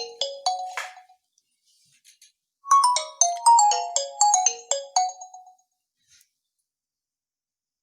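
Nokia 1 Plus ringtone playing: a quick run of short, bright notes that ends about a second in, then the same phrase once more after a short pause. It stops at around five and a half seconds.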